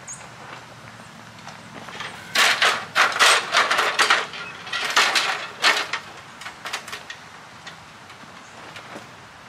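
A run of loud, irregular rustling and clattering, about three and a half seconds long and starting about two seconds in, from the portable garage's parts being handled during assembly.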